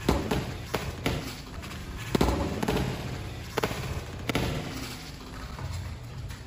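Boxing-gloved punches landing in Muay Thai sparring: several sharp thuds, the loudest right at the start and about two seconds in, with more near three and a half and four seconds.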